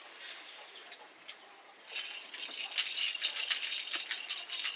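A steady, high-pitched rattling buzz starts suddenly about two seconds in and keeps going. Before it there is only faint room sound.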